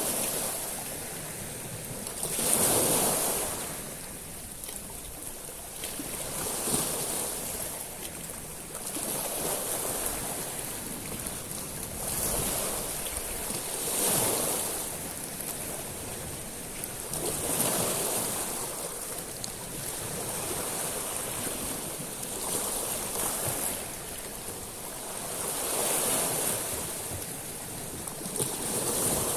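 Sea waves washing up a pebble beach, each wave swelling and drawing back with a hiss of water over small stones, the surges coming roughly every three to four seconds. A steady wind on the microphone runs under it.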